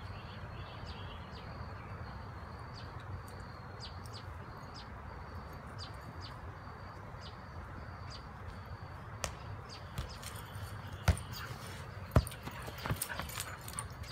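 Outdoor evening ambience: a steady low rumble with a short high chirp repeating every half second or so. In the last few seconds come several sharp thumps, the loudest two about a second apart.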